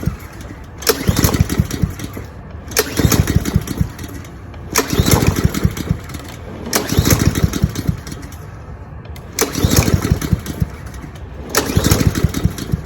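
Honda GCV190 lawn mower engine being pull-started over and over, about six pulls two seconds apart, each cranking briefly without catching: the carburetor has run out of gas.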